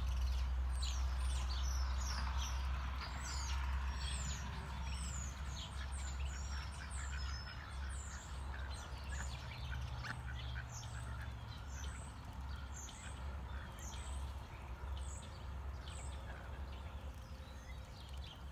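Small songbirds chirping over and over, thin high notes that slide downward, with occasional duck calls lower down, over a steady low rumble.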